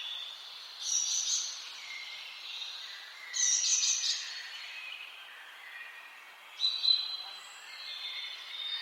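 Several songbirds singing, with softer warbling throughout. Three louder short trilled phrases stand out: about a second in, about three and a half seconds in, and near seven seconds.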